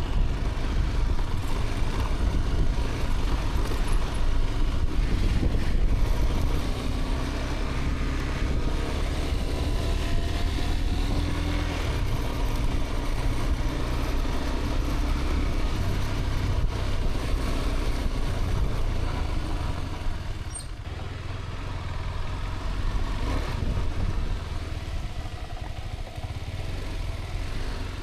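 Motorcycle on the move: engine running under a heavy rush of wind noise on the microphone, its pitch rising and falling a few times partway through.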